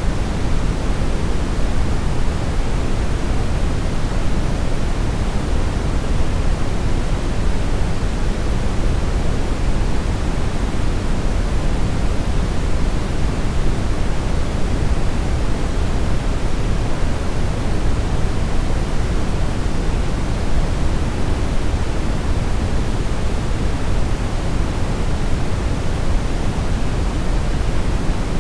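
Brown noise: a steady, unchanging rumbling hiss weighted heavily toward the low end, with no tones or events.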